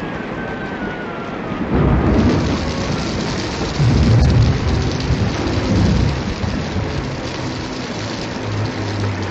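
Water gushing and splashing onto a stone floor, starting about two seconds in, with heavy low rumbling surges around two, four and six seconds before it settles into a steady pour.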